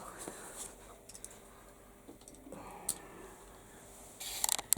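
Light handling noises with scattered small clicks, and a quick cluster of sharper clicks near the end, as hands ready tools and material for sanding.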